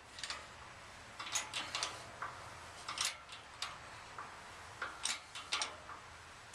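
Hydraulic shop press working against a seized gearbox output shaft: a dozen or so sharp metallic clicks and ticks at irregular intervals.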